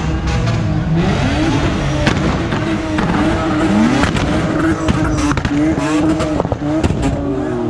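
Car engine revved hard over and over, its pitch climbing and dropping many times in quick succession, with sharp exhaust pops and cracks among the revs.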